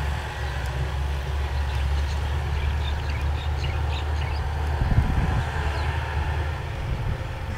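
Kubota L4708 tractor's diesel engine running steadily under load while pulling a disc harrow through the field, with a brief louder rumble about five seconds in.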